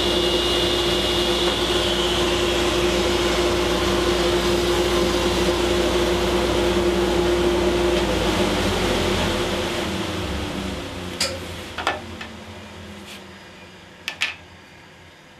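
Delta table saw running while a cedar strip is ripped near the start, then switched off about eight seconds in, its motor and blade winding down with a falling hum. A few sharp clicks and knocks follow near the end.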